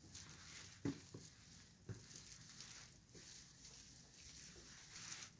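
Near silence with a few faint soft thumps, the loudest about a second in and another about two seconds in.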